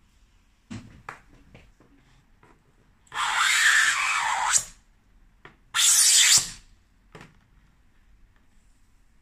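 Double-blade V trimmer scraped along the edge of an acrylic strip, shaving off plastic in two strokes: a longer one of about a second and a half, then a shorter one of under a second. A few light clicks come from the tool and strip being handled before and after.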